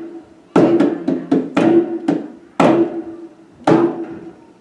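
Hand drum struck by hand in an uneven rhythm: about eight strokes, some in quick runs and some spaced out, each leaving a short ringing tone.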